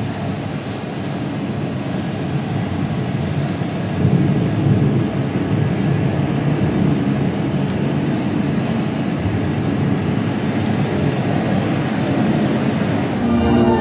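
A steady, loud rumbling drone with no clear pitch that swells about four seconds in, most likely part of the dance's recorded score playing in the theatre; faint musical tones come in near the end.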